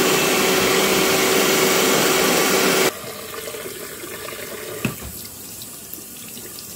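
Wagner Control Pro 250R airless paint sprayer running in purge mode, a steady hum over a loud rushing hiss of water being pumped through, which cuts off suddenly about three seconds in. Then quieter running tap water splashing over the sprayer's inlet filter and hoses in a stainless steel sink, with a sharp knock near the end.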